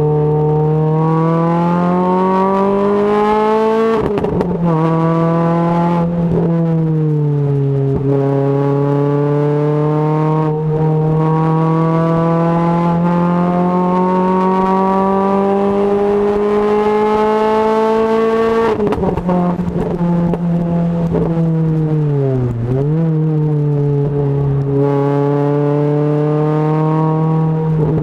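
Renault Clio RS 200 engine through a Supersprint aftermarket exhaust, accelerating hard. The pitch climbs steadily and drops back at each upshift, three times, then holds fairly steady with a couple of brief dips and falls away near the end as the throttle eases off.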